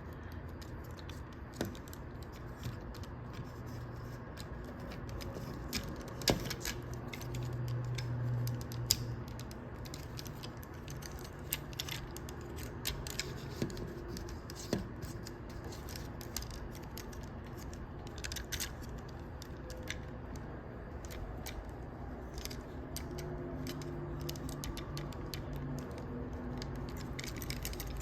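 Plastic Transformers action figure being transformed by hand: irregular small clicks and clacks of hard plastic parts rotating and snapping, with handling noise.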